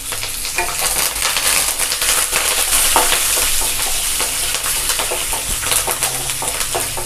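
Hot oil sizzling and crackling in a non-stick kadai as a tempering of mustard seeds, dals, cashews, green chillies and fresh curry leaves fries, with a wooden spatula stirring and scraping through it. There is a steady hiss with many small crackles.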